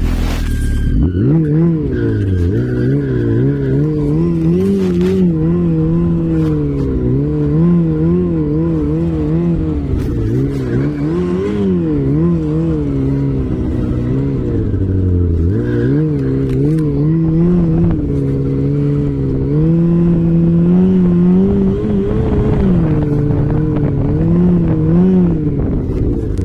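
Off-road vehicle's engine running under load, its revs rising and falling constantly as it is ridden. Near the start the revs drop low, then climb again about a second in.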